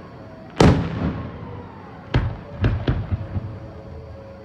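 Aerial fireworks shells bursting: one loud boom about half a second in that rumbles away, then a few lighter cracks in quick succession about two to three seconds in.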